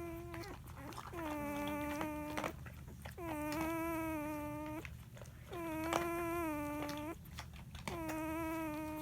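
German shepherd–husky mix puppy snoring in its sleep: a drawn-out, steady, whine-like tone that comes about four times, roughly every two seconds.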